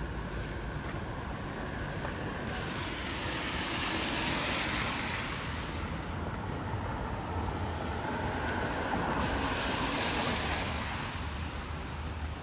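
Two vehicles passing one after the other on a rain-wet road, their tyres hissing over the wet surface; each pass swells and fades over a few seconds.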